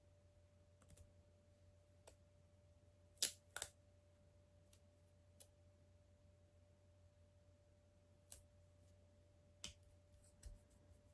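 Sparse small clicks of plastic Lego pieces being handled and fitted together, about a dozen in all, the two loudest close together a few seconds in, over a faint steady hum.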